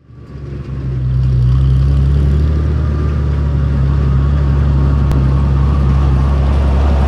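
Tractor engine running steadily as the tractor and its front-end loader drive in close. The engine fades in over the first second, and there is a single sharp click about five seconds in.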